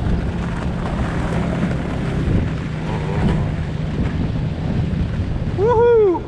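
Wind buffeting the microphone, then near the end a Siberian sled husky gives one short, loud call that rises and falls in pitch.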